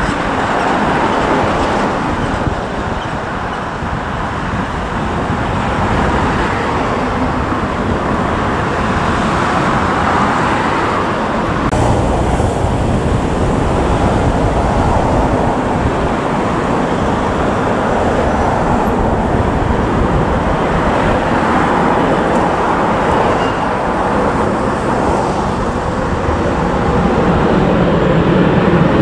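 Jet engine noise from Boeing 737 airliners: first a Southwest 737 lifting off at takeoff power, then, after a cut, a United Boeing 737-800's CFM56 turbofans running as it rolls on the runway. The low rumble builds near the end.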